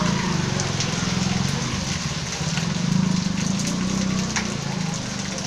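Steady rain pattering on a flooded street, with a low wavering hum underneath.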